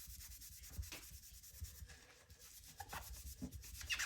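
Sponge loaded with Bar Keepers Friend powder scrubbing a steel knife blade, with barely any water: a gritty rubbing in quick back-and-forth strokes, softer about halfway through and louder near the end.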